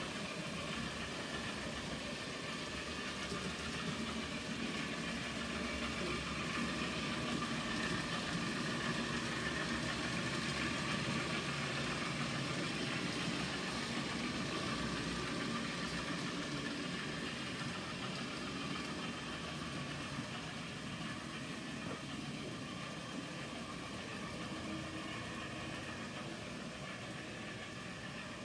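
N gauge model train running on the track: a steady motor hum and wheel noise that grows louder as it passes close by near the middle, then fades away.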